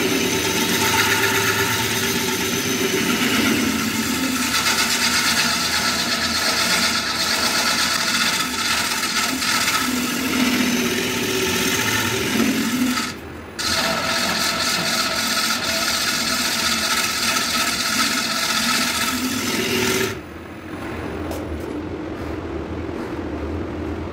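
A turning tool cutting into a spinning Albizia lebbeck bowl blank on a wood lathe, making a steady rough scraping hiss. It breaks off briefly about halfway through as the tool lifts, then stops about four seconds before the end, leaving a quieter hum from the lathe.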